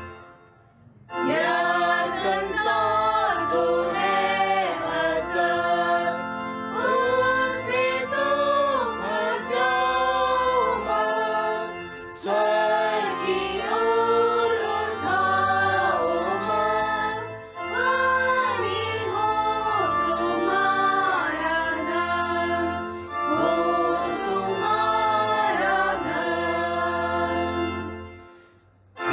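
A hymn sung in Hindi by voices over a steady instrumental accompaniment, starting about a second in and breaking off briefly near the end.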